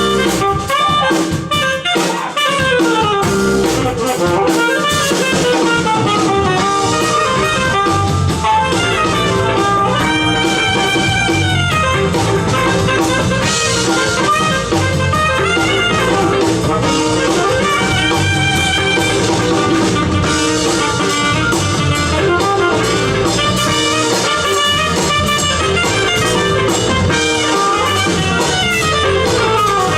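Jazz-fusion instrumental played by a band: a saxophone lead with quick runs and slides over electric guitar and drum kit.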